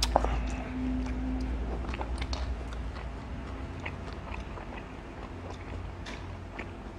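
Close-miked chewing of cheese-crust pizza crust: wet mouth sounds with scattered small crunches and clicks, the sharpest just after the start, over a steady low hum.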